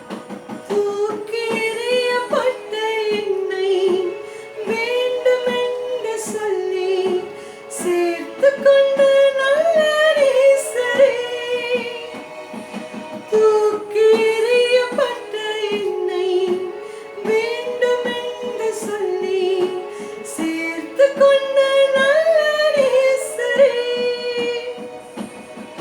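Worship song: a woman singing a melody in phrases of a few seconds over instrumental accompaniment with a steady beat.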